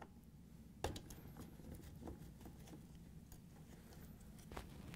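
Faint, scattered clicks and taps of a short Phillips screwdriver backing out the upper mounting screw of a dishwasher's drain solenoid bracket, with gloved hands handling the metal bracket. One sharper click comes about a second in.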